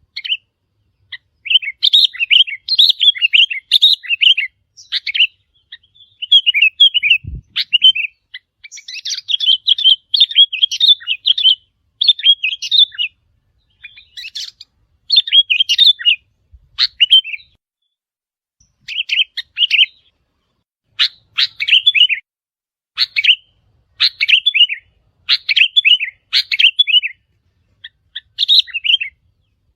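Sooty-headed bulbul calls: loud runs of short, quick chirping phrases, repeated with brief pauses between them. There is one short low thump about seven seconds in.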